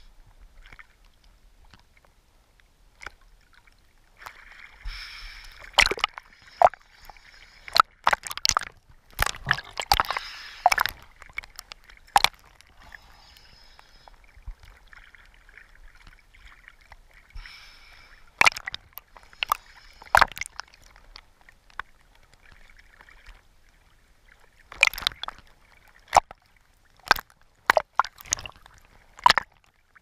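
Small sea waves sloshing and slapping against a camera held at the water's surface, with irregular sharp splashes as it dips in and out.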